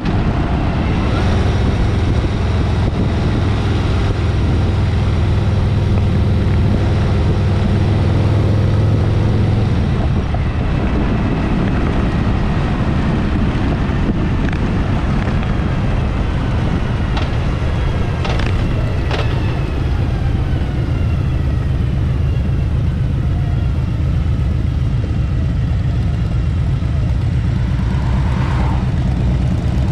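Harley-Davidson motorcycle running on the road, a steady low engine drone mixed with wind noise. About ten seconds in the engine note eases somewhat, and a few brief clicks come through midway.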